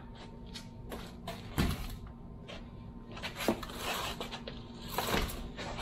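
A heavy lead-acid golf cart battery being lifted off a bathroom scale and set down, with handling and shuffling noises. There is a dull thump about a second and a half in, then scuffing and a short knock.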